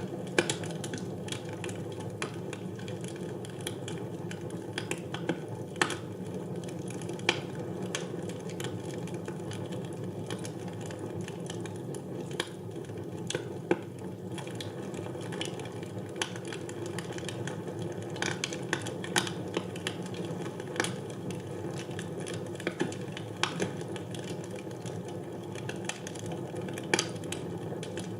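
Wood fire burning in a fireplace: a steady low hiss and rustle with many irregular sharp pops and crackles.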